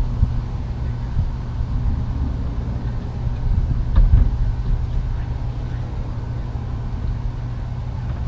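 Outdoor ambience: a low, fluctuating rumble with a light hiss above it, and a single knock about four seconds in.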